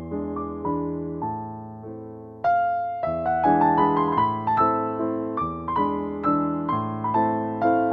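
Background piano music: a gentle melody of struck notes that fade away, growing louder and fuller about two and a half seconds in.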